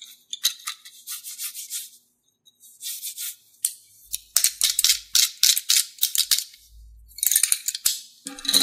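A handful of paint brushes rattling and clicking against each other as they are shuffled in the hands, in several quick spurts with short gaps.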